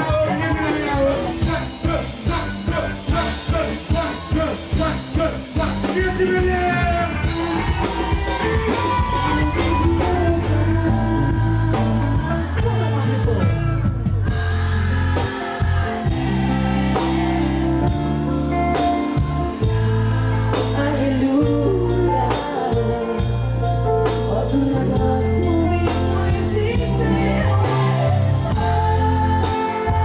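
Live band music with a singer: a light, choppy accompaniment for the first few seconds, then the full band comes in with a heavy bass and a steady beat, with a brief drop about halfway through.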